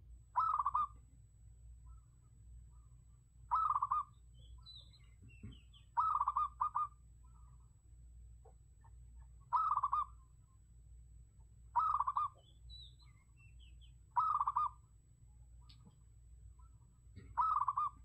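Zebra dove cooing: a short, quickly pulsing rolling coo repeated about every two to three seconds, seven times, once doubled. Faint high chirps from other small birds come between the coos.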